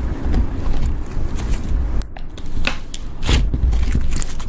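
Clear slime being folded and squeezed by hand around a block of white foam mixed with makeup, with a run of sharp crackling pops in the second half.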